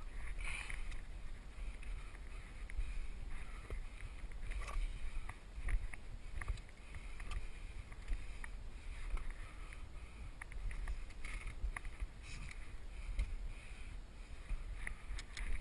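Wind rumbling on the microphone, with scattered clicks and scrapes of hands and boots on rock as a climber scrambles up a steep rocky gully.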